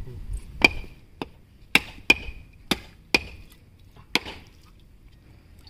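Coconuts being cracked open by striking them against a stone block: a series of about seven sharp knocks, irregularly spaced, some with a brief ring.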